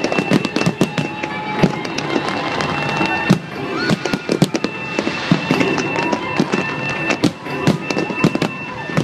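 Fireworks display: many aerial shells bursting in quick, irregular succession, sharp bangs and crackles overlapping one another, with steady high tones held over them.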